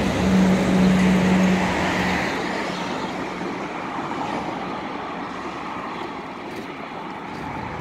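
Street traffic: a motor vehicle passing close by, its steady engine hum loudest in the first two seconds, then fading into the general rumble of road traffic.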